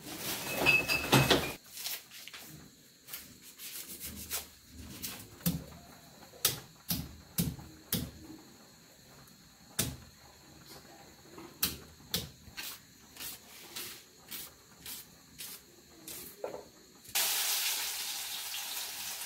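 Sharp, irregular knocks of a steel vessel pounding garlic cloves on a kitchen counter, then, near the end, a sudden loud, steady sizzle as the garlic hits hot mustard oil in the kadai for a tadka.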